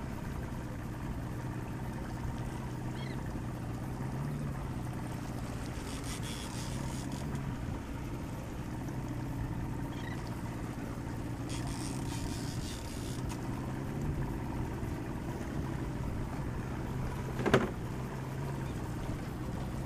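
Outboard motor running steadily at low, trolling speed, a constant low hum. A single sharp knock comes near the end.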